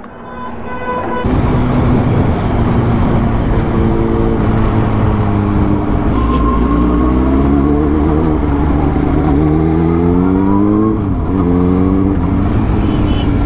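Suzuki sportbike engine pulling away and accelerating through the gears. The engine note rises steadily and falls sharply at a gear change about eleven seconds in, over loud wind and road noise. It starts about a second in as the bike sets off.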